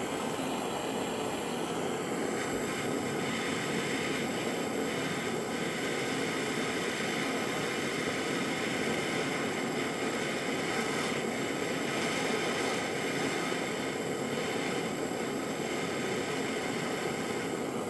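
MasterClass kitchen blowtorch burning with a steady hissing flame, heating a stainless steel mesh wick to red heat to oxidise it.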